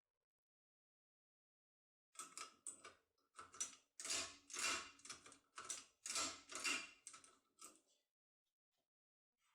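Metal lock cylinder and force key being handled: an irregular run of short clicks and rattles starting about two seconds in and lasting some six seconds.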